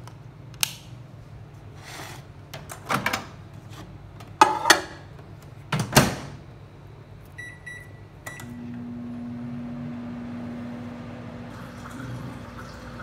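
A wall-socket switch clicks, then an LG microwave oven's door is opened and slammed shut with clattering knocks. Two short keypad beeps follow, and the microwave starts running with a steady hum as it reheats food.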